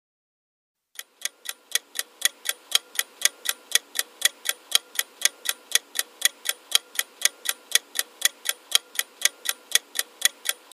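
Clock-ticking sound effect marking a quiz answer countdown: even, sharp ticks at about four a second, starting about a second in.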